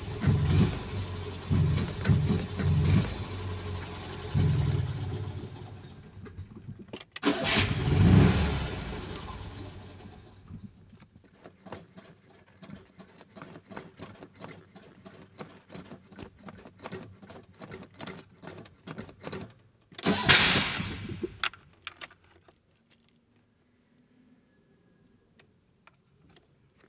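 Fiat 126p's air-cooled two-cylinder engine cranked on the starter, turning over in uneven pulses and sputtering without catching. Two louder bursts and a run of light clicks follow before it falls quiet near the end.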